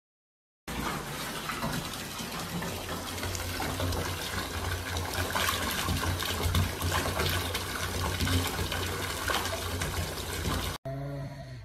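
Bath mixer tap running full, its stream pouring over a cat's back and splashing into a part-filled bathtub: a steady rush of water that starts about a second in and cuts off suddenly near the end.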